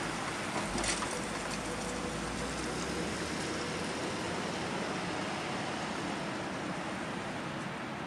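Strong storm wind rushing steadily through the branches of blossoming cherry-plum trees, with a gust buffeting the microphone about a second in.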